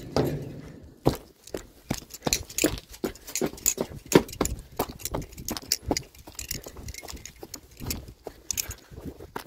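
Balisong (butterfly knife) being flipped: a quick, irregular run of sharp metallic clicks and clacks as the handles swing round and knock together.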